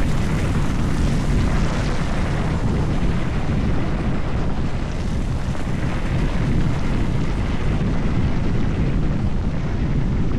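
Steady wind rumble on the microphone as an electric dirt bike rides a dirt trail, with the bike's own running noise under it.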